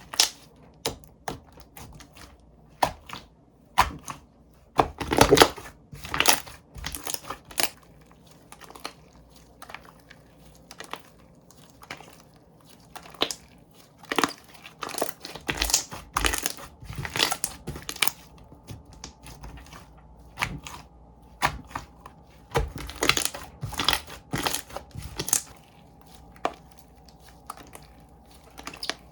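Slime being played with by hand, pressed, poked and stretched, giving irregular sticky clicks and crackly popping in short clusters with brief pauses between.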